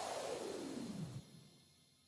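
End of an electronic music track: a synth sweep falls steadily in pitch and cuts off about a second in, leaving a faint tail that fades out.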